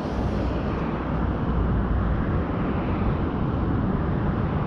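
Steady roar of highway traffic.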